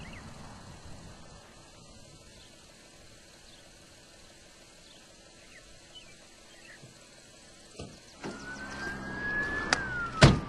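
A siren wailing, coming in about eight seconds in as one tone that rises slightly and then falls slowly in pitch. Before it there is only faint wind with a few small chirps. Loud knocks of the camera being handled come near the end.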